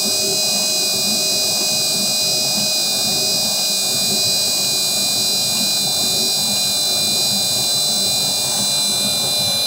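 Stand mixer motor running steadily with a high whine, its spiral dough hook kneading a heavy double batch of bread dough without straining.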